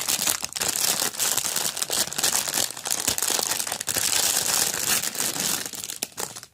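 Crinkly packaging being handled and pulled open by hand: a continuous dense crinkling and crackling full of small clicks that dies away near the end.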